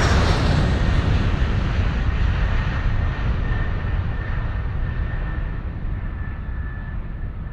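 Airplane engine noise fading away as the aircraft moves off after a close pass, the high end of the rushing sound dropping away steadily.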